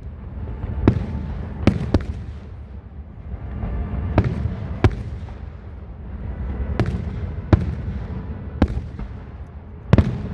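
Aerial fireworks shells bursting in a series of sharp bangs, about nine spread unevenly through the span, over a continuous low rumble.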